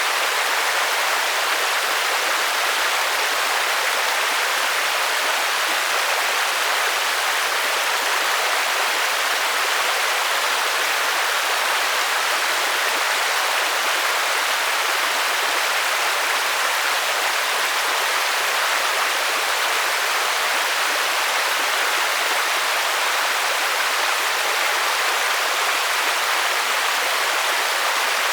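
Steady, even hiss of heavy rainfall, unbroken and unchanging, with no single drops standing out and little low rumble.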